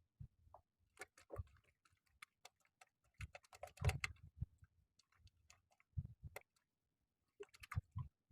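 Faint, irregular clicks and taps coming in small clusters, the loudest bunch about four seconds in.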